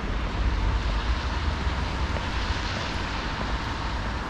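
Street traffic: a steady low rumble with a hiss that swells over a couple of seconds and fades as a vehicle passes.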